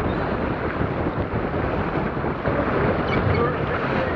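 Wind buffeting the microphone over the rush of water along the hull of a heeled Sonar keelboat sailing in a strong breeze; steady throughout.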